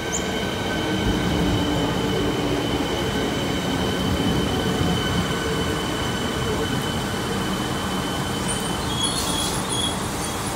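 Electric suburban train moving slowly along a station platform: a steady rumble of wheels and running gear with a continuous whine, and a short hiss about nine seconds in.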